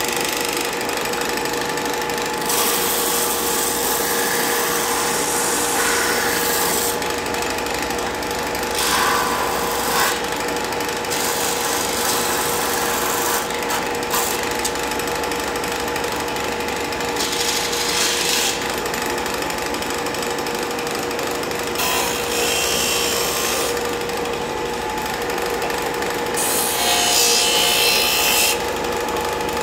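Porter-Cable combination belt and disc sander (4 x 36 inch belt) running with a steady motor hum, while a piece of wood is pressed against the moving abrasive in several passes, each a rasping scrape lasting one to a few seconds.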